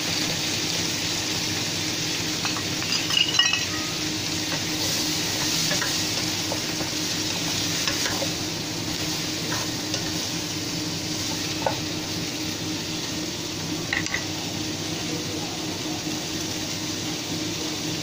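Okra with garlic and onion sizzling in a nonstick frying pan while being stirred and tossed with a wooden spatula. A few knocks and scrapes of the spatula against the pan, the loudest about three seconds in.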